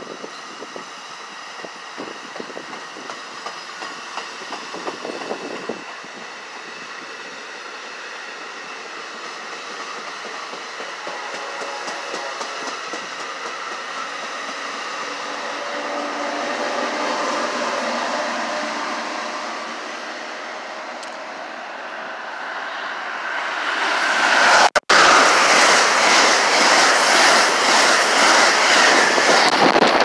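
NJ Transit bi-level commuter train pulling out of the station, its wheels clicking over the rail joints, with the rumble swelling and easing. About 24 s in, a much louder rush takes over as an Amtrak train led by an ACS-64 electric locomotive comes through at speed on the near track.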